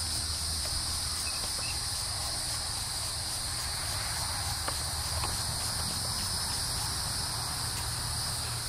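Steady high-pitched chorus of insects, with a low steady rumble beneath.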